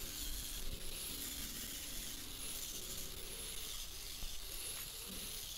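Angle grinder fitted with a knotted wire wheel, running steadily against a used steel horseshoe and scrubbing dirt and old hoof off it.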